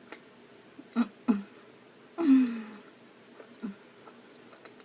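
A few short mouth and voice sounds from a person eating noodles: two brief hums about a second in, then a longer sound with a falling pitch and a breathy hiss a little past two seconds.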